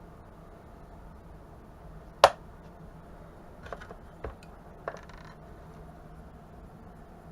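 Small hard objects being handled and set down on a hard surface: one sharp clack, then a few lighter clicks and a brief rattle.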